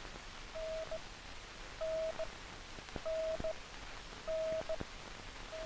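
Low-frequency radio range beacon code heard through an aircraft receiver with its range filter set to 'range', so only the code comes through. A steady tone keys a dash then a dot, the range letter N, about every 1.2 seconds over faint static with a few clicks.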